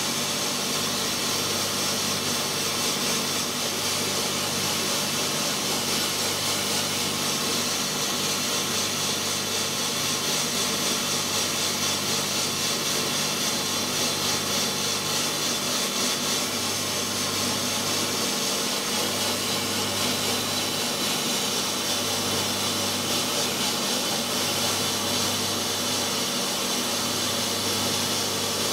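Sandblaster running continuously, a steady hiss of air and abrasive grit blasting into York stone, with a steady low machine hum beneath it.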